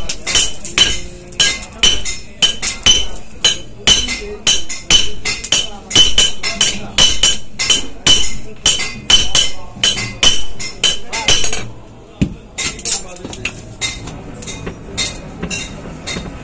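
Two blacksmiths taking turns hand-hammering a red-hot knife blank on an anvil: sharp metallic strikes, two or three a second, each with a brief ring. The hammering stops about twelve seconds in, leaving only fainter, lighter knocks.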